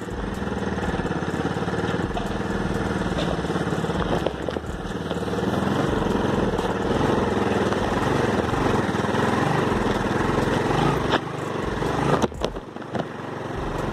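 Motorcycle engine running steadily while being ridden over a muddy dirt track. The sound dips briefly near the end.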